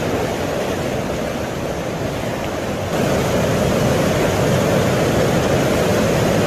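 Steady rushing of fast-flowing floodwater, a little louder from about three seconds in.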